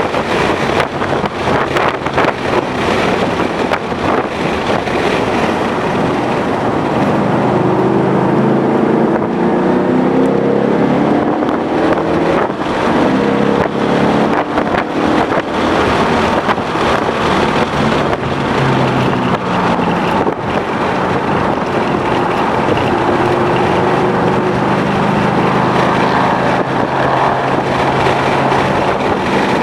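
2011 Ford Mustang GT's 5.0-litre V8 driven hard on a race track, its pitch climbing and dropping several times as it accelerates and lifts. Heavy wind noise buffets the microphone throughout.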